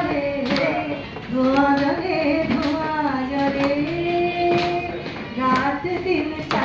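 A woman singing a solo melody into a hand-held microphone, holding long, steady notes.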